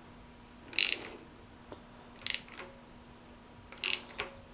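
Hand socket ratchet clicking in three short spurts about a second and a half apart, checking the tightness of the bottom bolt on a thermostat housing.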